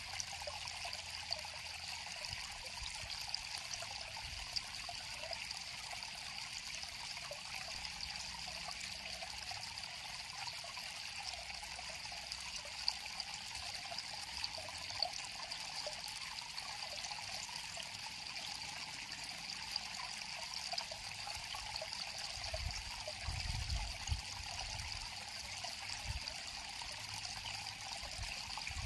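A shallow river flowing and trickling steadily over stones, with a few brief low bumps about three-quarters of the way through.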